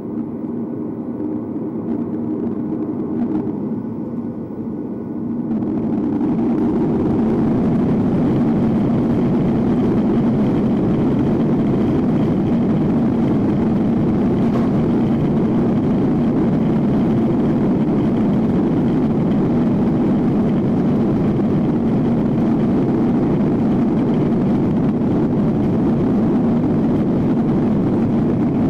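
Cabin noise of a Boeing 737-800's CFM56-7B jet engines heard from a seat over the wing, a steady even din as the airliner taxis onto the runway. About five seconds in, the sound becomes louder and fuller and then holds steady.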